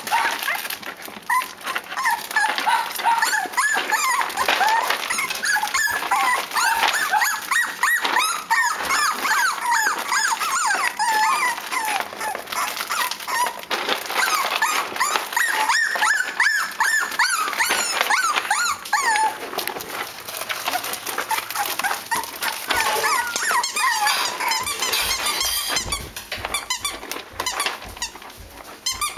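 A litter of Cavalier King Charles Spaniel puppies whining and yelping together in many short, overlapping, high-pitched cries, with clicks and scratches among them; the cries thin out in the last few seconds.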